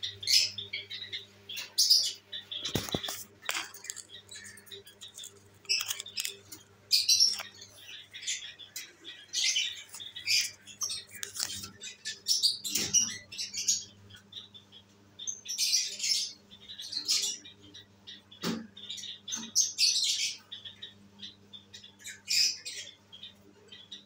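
Lovebirds chattering in short, high-pitched chirps and squawks, bursts coming every second or so. A steady low hum runs underneath, and two sharp knocks come about 3 seconds in and near 18 seconds in.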